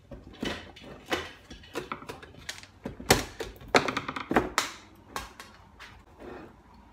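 Irregular knocks and taps of wooden pieces being handled and fitted together, about a dozen sharp hits, the loudest near the middle.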